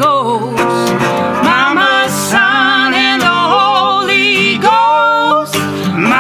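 Live folk song: guitar with long, wavering sung notes, without words.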